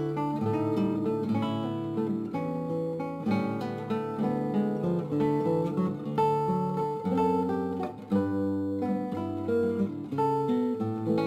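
Background music played on acoustic guitar: a continuous tune of plucked notes.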